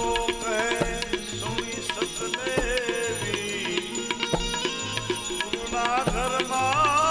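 Instrumental interlude of a Gujarati devotional bhajan: a gliding melody line played over steady hand-drum beats, with deep thumps about every second and a half.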